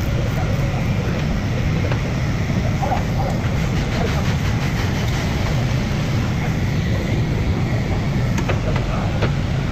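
Steady low rumble of workshop background noise, with a few faint metallic clicks from a wrench on the stabilizer link nut, two of them close together near the end.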